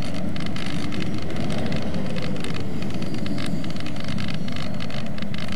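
Electric motor and propeller of a HobbyKing Sky Eye FPV glider running, mixed with steady wind rush as the plane flies low; the pitch of the motor wavers slightly up and down.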